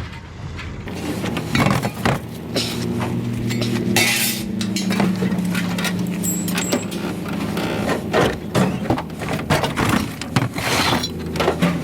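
Scrap metal pieces clanking and clattering as they are thrown into a pickup truck's bed, many separate metal impacts, over a steady low engine hum.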